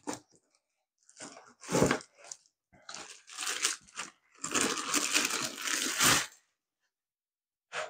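Packaging being handled: crinkling and rustling in several bursts, the longest for about two seconds past the middle, with a short click near the end.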